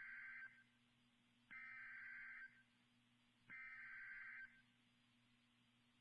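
NOAA Weather Radio SAME header: warbling digital data-tone bursts, each about a second long and two seconds apart. The first ends about half a second in, and two more follow. This is the coded Emergency Alert System header that announces a Flash Flood Watch.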